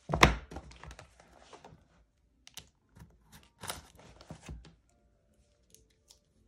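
A new, still unopened scrapbook sticker book being handled and opened on a table. A sharp knock comes near the start, then scattered clicks, taps and rustles in short bursts, thinning out toward the end.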